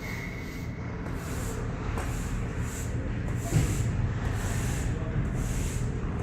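Ice hockey play on the rink: skates scraping and carving the ice in repeated short swishes, with a sharp knock about three and a half seconds in.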